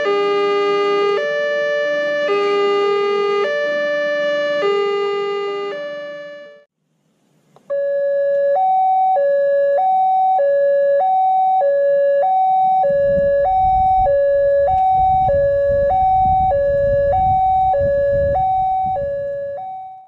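Electronic railway level-crossing warning alarms. First comes a repeating chime of several stepped notes. After a brief break it is followed by a two-tone warning that alternates high and low about once a second. A low rumble joins about two-thirds of the way through.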